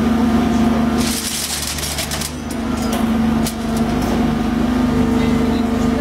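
Shear baler running under hydraulic power with a steady hum as its shear head presses down on a charge of scrap rebar, with a burst of high hissing about a second in and a few sharp metallic knocks from the bars.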